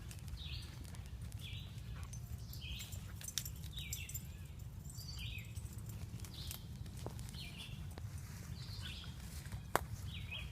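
Footsteps through woodland undergrowth with scattered twig snaps, one sharper snap near the end. A bird calls over and over, about once a second.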